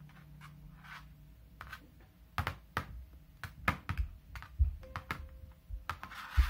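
A metal screw on a string tapping and knocking against paper as it is dropped and jerked about: a quick, irregular run of sharp clicks starting about two and a half seconds in.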